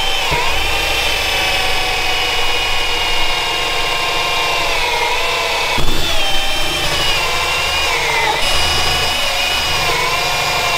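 Electric drill driving a step drill bit through a plastic air filter housing. The motor whines steadily, its pitch sagging briefly now and then as the bit bites. There is a single knock about six seconds in.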